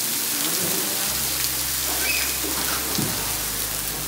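Raw ribeye steaks sizzling on a hot Blackstone flat-top griddle, a steady hiss.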